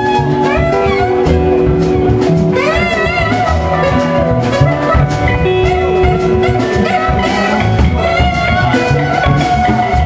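Live jazz-funk band playing a groove: drum kit, electric guitar and bass, with a lead line that slides and wavers in pitch about three seconds in.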